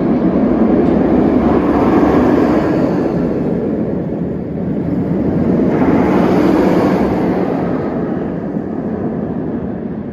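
Strong wind buffeting the microphone, a loud rumbling noise that swells in two gusts, about two and six seconds in, then eases.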